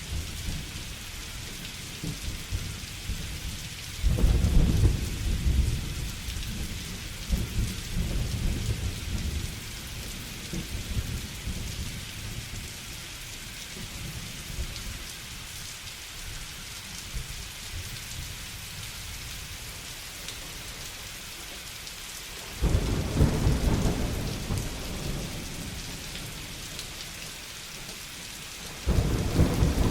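Steady heavy rain hiss with rolling thunder. Deep rumbles swell up about four seconds in, again about two-thirds of the way through, and once more near the end, with fainter grumbles between them.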